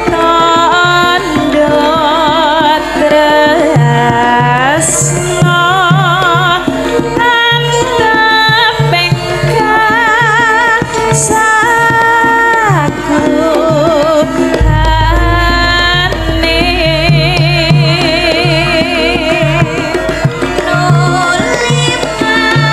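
A Javanese sinden (female singer) sings a slow, ornamented melody with wide vibrato over a live band, a hand drum keeping a steady pattern. A deep bass comes in about two thirds of the way through.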